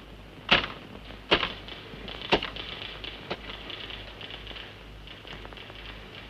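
Manual typewriter keys striking the paper: three heavy single strokes about a second apart, then a faster, steady clatter of typing.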